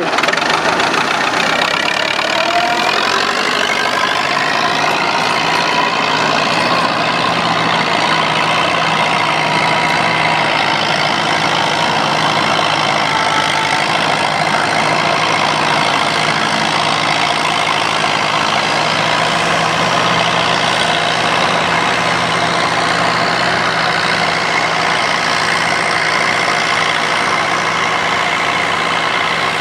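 Massey Ferguson 185 tractor's four-cylinder diesel engine running steadily under load while tilling a dry field, its note rising over the first few seconds as it picks up speed.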